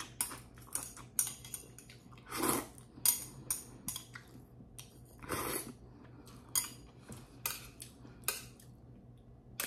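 Metal chopsticks clicking and scraping against a ceramic bowl and a stainless steel pan, many sharp clicks in quick succession. Noodles are slurped twice, about two and a half and five and a half seconds in.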